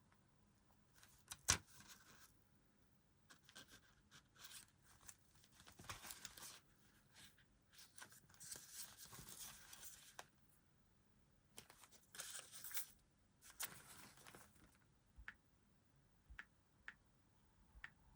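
Sticker packets being torn open and their wrappers crinkled, in short, faint bursts of tearing and rustling, with a sharp click about one and a half seconds in.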